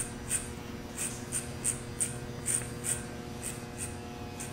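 Corded electric hair clipper humming steadily as it is drawn through short hair in quick repeated strokes, about two to three cutting passes a second, going with the grain to take off extra length.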